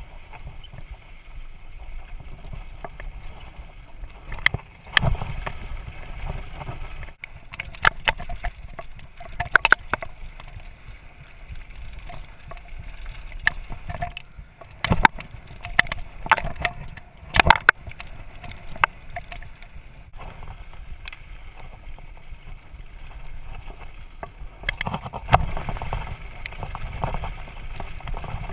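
Downhill mountain bike rattling and clattering over a rough dirt trail, with the rumble of tyres on dirt and wind on the microphone. Sharp knocks from bumps come throughout, in clusters around 5, 8 to 10, 15 to 18 and 25 to 27 seconds in.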